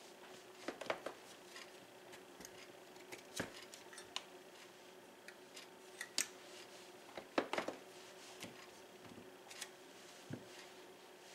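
Metal bench scraper pressed through blocks of cheese and knocking on a wooden cutting board: scattered clicks and knocks, loudest in small clusters about a second in, near the middle and after about seven seconds.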